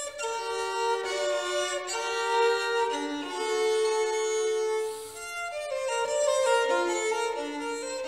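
Violin playing a slow melody of long held notes.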